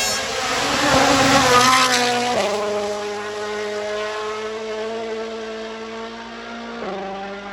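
Rally car passing at speed: a loud rush of engine and tyre noise peaks about two seconds in, then the engine note drops abruptly and holds as the car pulls away, with another gear change near the end.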